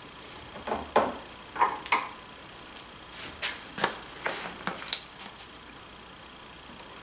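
Light clicks and knocks of hands handling small workshop items and a plastic glue bottle at a workbench, about eight sharp taps scattered through the first five seconds.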